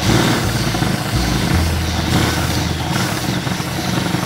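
Power drill running, its twist bit boring into a bakelite AK pistol grip.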